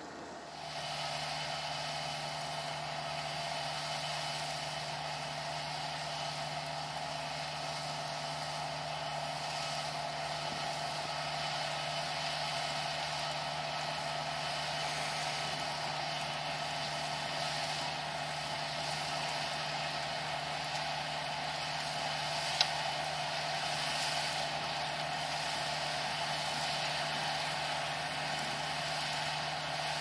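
Small MASTER DSM55 rice combine harvester running steadily while it cuts and threshes rice, a constant engine and machinery hum with a few held tones. A single sharp click about two-thirds of the way through.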